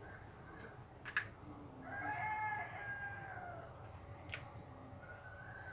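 Faint bird calls: a crowing call that rises then falls, lasting just over a second about two seconds in, over a small bird's short chirps repeating about three times a second. Two light clicks.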